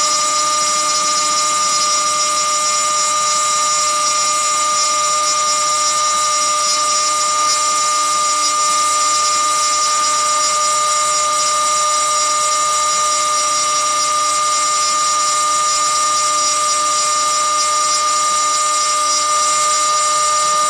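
CNC router spindle running at speed, its single-flute 1/4-inch carbide end mill cutting MIC6 cast aluminum plate dry in shallow 1 mm passes. The result is a loud, steady high-pitched whine over a hiss that does not change.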